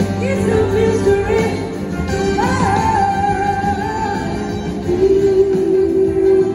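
A live band playing a song, with singing and long held notes over electric guitars, keyboards and drums, heard from the audience in a large hall.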